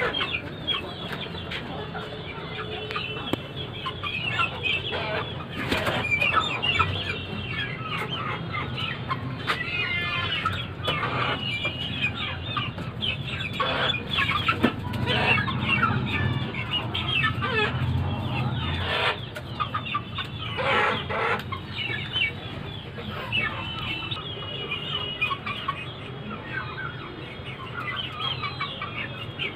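A small flock of Aseel chickens clucking and calling continuously, short overlapping calls with a few sharp flutters in between.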